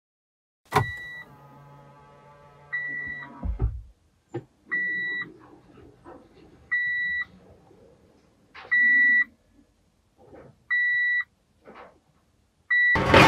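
Car's electronic warning chime: a single-pitched beep about half a second long, repeating every two seconds. It comes after a click and a low hum that stops with a thump about three and a half seconds in, and a loud burst of noise comes near the end.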